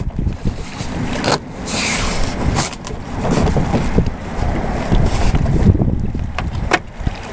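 Foam padding tubes being pushed and fitted onto a folding kayak's plastic cockpit rim: rustling scrapes and a few sharp clicks, over a steady rumble of wind on the microphone.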